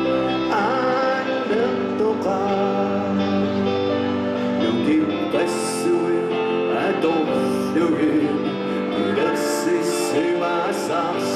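Live band playing on stage: electric guitar, bass guitar and drums, with a singer's voice over them.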